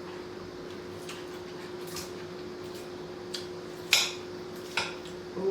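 Someone eating: a few short, sharp clicks and taps spaced a second or so apart, the loudest about four seconds in, over a steady faint hum.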